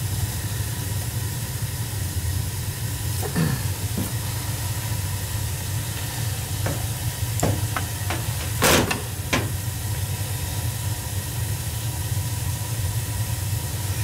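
Steady hiss and low hum, broken by a scrape and a handful of short metal clicks and clinks of a wrench working on a gas boiler's pilot and thermocouple fittings, the loudest clink a little past halfway.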